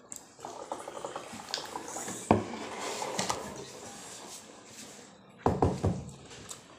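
Eating by hand from a plate of rice and leafy green salad: fingers working through the leaves with a crisp rustle and crunch, and a few sharp knocks against the plate, the loudest about two seconds in and again around five and a half seconds in.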